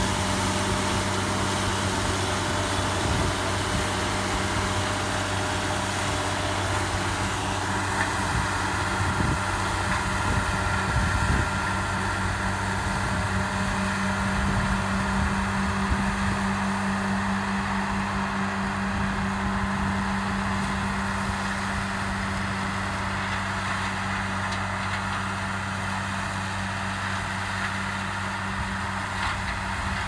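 Broussard 223 double-row wholestalk sugarcane harvester running steadily as it cuts cane. Its engine drones at a constant pitch, growing slightly fainter over the second half as the machine pulls away.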